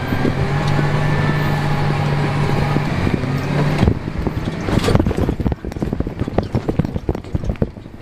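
Tractor cab interior while towing a grain cart: a steady engine drone for about four seconds, then it breaks off and quick, irregular knocks and rattles follow as the tractor and cart jolt over a freshly tiled, bumpy field.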